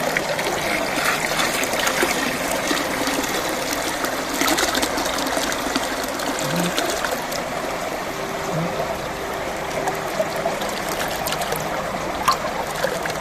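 River water running and trickling steadily, an even rushing noise with no break.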